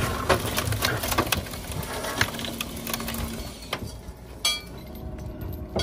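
Old steam locomotive being dragged out by a cable: repeated clanks, knocks and creaks of rusted metal over a steady low rumble.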